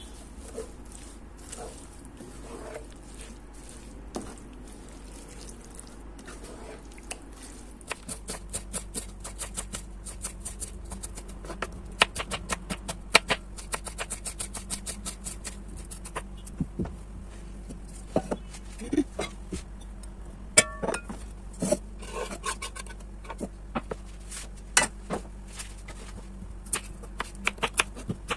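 A wooden spoon stirring a thick sauce in a pot with soft scraping sounds, then a knife chopping onion and potato on a wooden cutting board in rapid, uneven taps that take over after several seconds.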